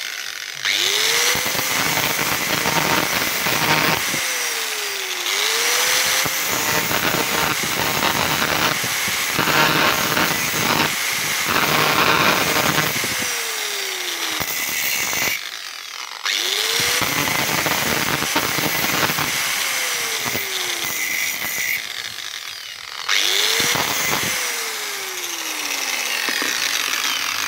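Small grinder with an abrasive disc grinding a piece of metal spoon into a lure blank: harsh grinding noise over the motor's whine. The tool is switched on and off several times, its whine rising as it spins up and falling as it winds down.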